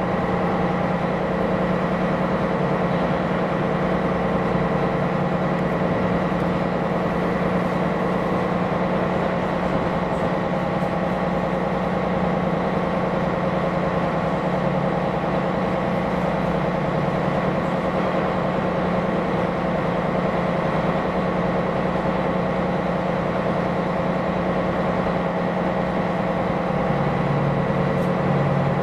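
A ship's diesel engine runs with a steady drone and holds a fixed pitch throughout. A deeper tone joins in near the end.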